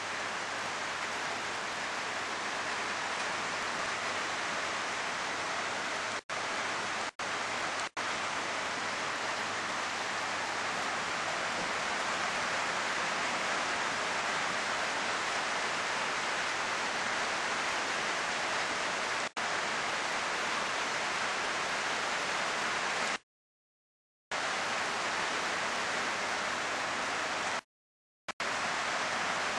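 Heavy downpour: a steady, even rush of rain. The sound cuts out briefly several times, once for about a second.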